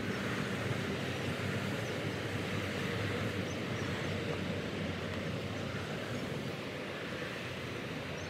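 Steady outdoor ambient noise: a continuous hiss with a low hum underneath, the background of a street-side patio with traffic nearby.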